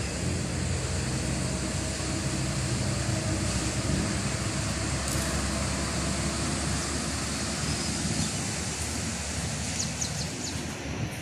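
Steady outdoor rushing noise with a faint low hum underneath. A few brief, high bird chirps come near the end.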